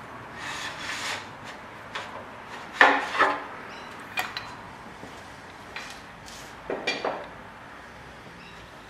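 Scattered knocks and clatters of hard objects, metal and wood, being handled and set down in a workshop: the loudest comes about three seconds in, with another cluster about seven seconds in.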